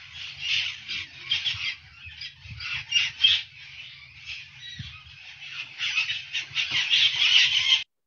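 Puerto Rican parrots giving harsh squawking calls in rapid, repeated bursts, loudest about three seconds in and again near the end, then cutting off abruptly.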